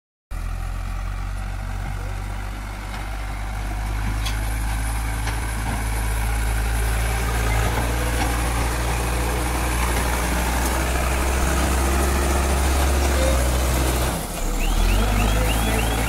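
Cat 424B backhoe loader's diesel engine running steadily as the machine works soil. Near the end a chirping reverse alarm starts, repeating about four times a second as the loader backs up.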